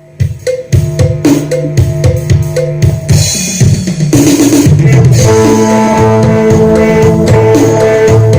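Isan phin sing band music starting with a loud drum-kit intro of separate kick and snare hits, then about five seconds in the full band comes in and plays on steadily over the beat.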